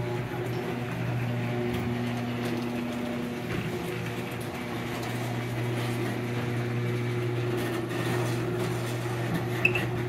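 Electric garage door opener motor humming steadily as it raises a sectional garage door that has just been put back on its tracks and works properly, with a sharp click near the end.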